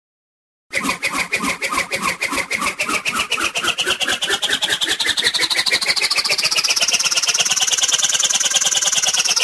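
Cartoon sound effect: a fast pulsing, motor-like whirr that starts abruptly under a second in, its pitch climbing slowly and peaking near the end before starting to fall.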